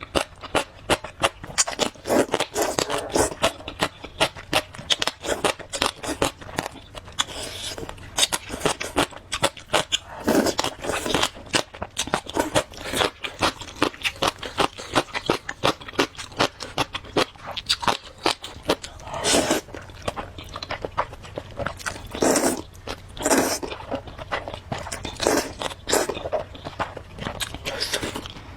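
Close-miked eating: a person biting, crunching and chewing fried food and noodles, a rapid run of wet clicks with a few louder bites.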